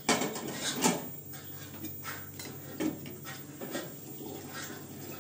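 Scattered knocks and clinks of kitchenware being handled: a large metal cooking pot and a metal tray, the loudest about a second in, over a steady low hum.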